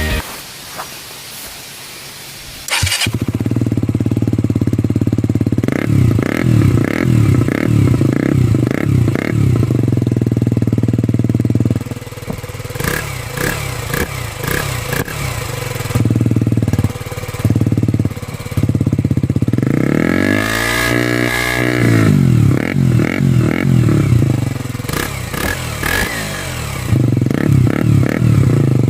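KTM Duke 125's single-cylinder engine starting about three seconds in, then idling with repeated quick throttle blips and one longer rev that rises and falls. The exhaust sounds loud and open because an extra hole has been drilled in the silencer canister after its steel cover was removed.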